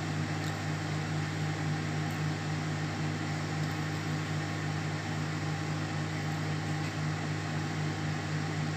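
Samsung Smart Slim Fry microwave oven running mid-cycle: a steady low hum that does not change.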